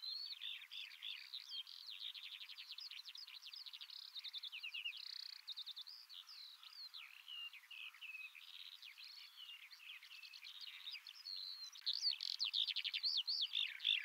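Songbirds singing: a continuous, dense run of quick chirps and trills, louder from about twelve seconds in.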